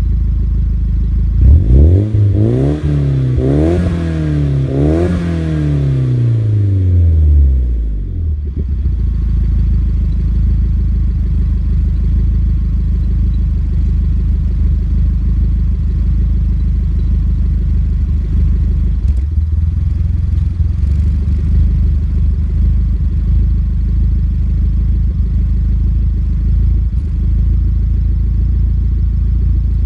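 Nissan Silvia S15 Spec R's turbocharged SR20DET four-cylinder through a GP Sports EXAS EVO Tune muffler with the inner silencer removed. It is revved up from idle in three quick blips, falls back by about eight seconds in, and then idles steadily.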